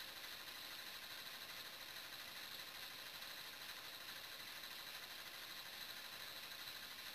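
Maytag front-load washing machine running, a faint steady whir and hiss with no knocks or thumps.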